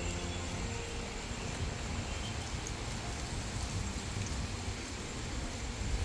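Steady outdoor background noise, an even hiss over a low rumble, with no distinct events. A tail of background music fades out in the first second.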